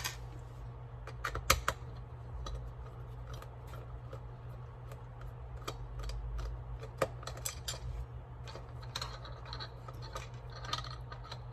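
Small scattered clicks and taps of a small screwdriver working a screw out of a BlueParrott 450-XT headset, over a steady low hum.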